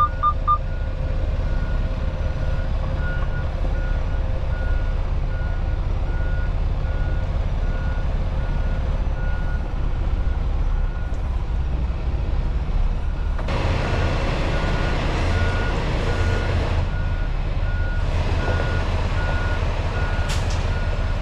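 Semi truck reversing: a backup alarm beeping in a steady series over the low rumble of the diesel engine. A louder rushing noise swells in twice in the last third.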